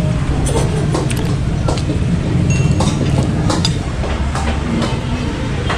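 Metal spoons and forks clinking against ceramic plates, a scattering of light clinks, over a steady low engine rumble from vehicles close by.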